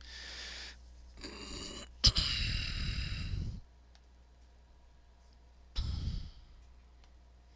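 A person sighing and breathing out close to the microphone, four times; the longest breath, about two seconds in, lasts over a second and opens with a sharp click.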